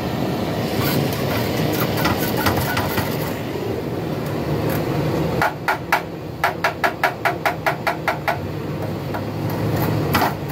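A small hammer tapping on radiator metal during soldering repair. It gives a quick, even run of about a dozen sharp ringing taps, roughly five a second, in the middle, with a few scattered taps elsewhere. A steady low rumble runs underneath.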